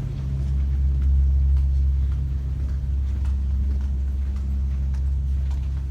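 A steady low hum, with faint footsteps while walking.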